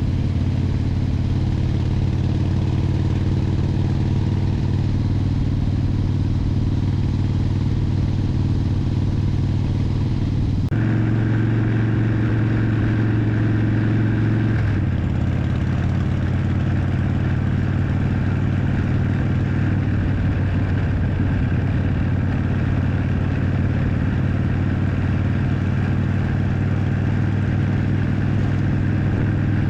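Harley-Davidson Springer Softail's V-twin engine running as the motorcycle is ridden. The engine note changes about 11 seconds in and again about 15 seconds in.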